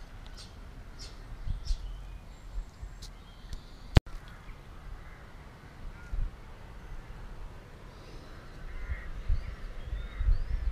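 Outdoor background with birds calling, short chirps and calls mostly in the second half, over a low rumble. A single sharp click about four seconds in is an edit splice, and there are faint light clicks before it.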